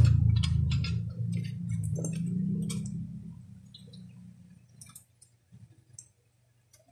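Light clicks and taps of small metal air-pistol parts being handled and set down on cardboard during disassembly. A low hum underneath fades away over the first few seconds.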